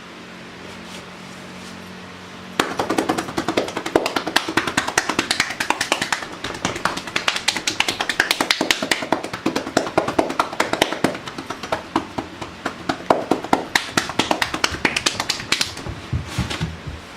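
Rapid hand-percussion massage (tapotement): hands patting and hacking against the body in a fast, uneven run of taps. It starts suddenly about two and a half seconds in and stops near the end.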